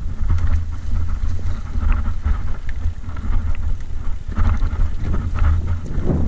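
Wind buffeting the microphone as a mountain bike rolls downhill on a dirt track, a steady low rumble, with scattered clicks and rattles from the bike jolting over bumps.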